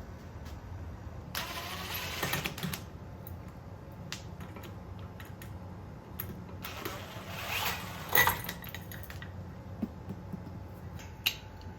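Small metal tool parts and hardware clinking and rattling as they are handled, in two short bursts about a second and a half in and around seven seconds in, with scattered clicks between.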